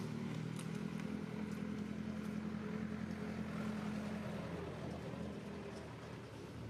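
Motor vehicle engine running with a steady hum that fades away about four to five seconds in.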